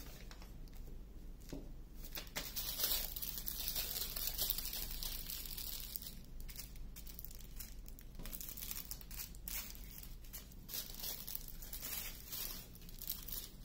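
Small plastic bags of diamond painting drills crinkling as they are handled, with many light clicks.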